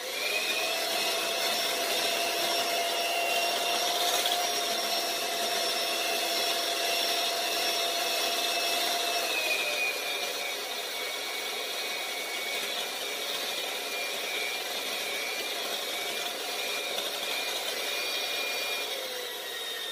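Electric hand mixer running steadily, its beaters whipping mayonnaise and cream cheese in a glass bowl. The motor's whine drops a little in pitch about halfway through and winds down near the end.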